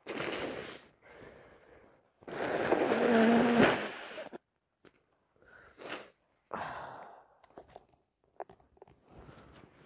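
A woman with a head cold sneezing: two quick indrawn breaths build up, then one long, loud sneeze about two seconds in, followed by sniffling.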